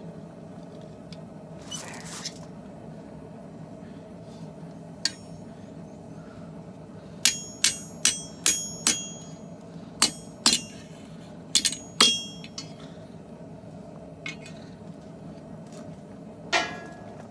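Hand hammer striking hot steel on an anvil: about ten ringing blows in two quick runs, over a steady low rumble.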